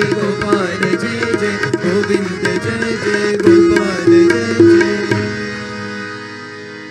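Instrumental background music with plucked strings and drums, fading out over the last couple of seconds.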